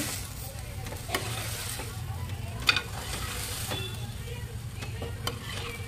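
A metal spoon stirring and scraping basmati rice and green peas in an aluminium pressure cooker, with scattered clinks against the pot over a faint sizzle as the rice fries in oil and spices.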